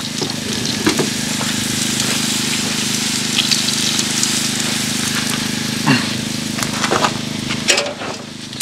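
Beef roast sizzling on the grate of a portable gas grill, over a steady low hum. A few light clicks and knocks come through, and near the end the sizzle drops as tongs reach in for the roast.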